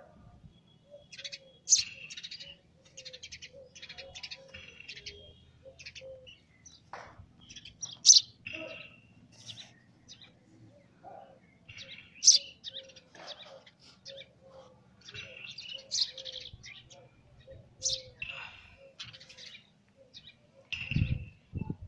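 A young house sparrow chirping. Loud single chirps come every few seconds, with softer, quicker chirps in between. A few low thumps are heard near the end.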